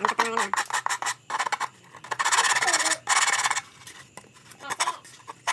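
Scraping and rubbing of hands and wooden parts against a handmade wooden miniature truck cab. There are quick short strokes in the first second, then two longer noisy stretches about two seconds in.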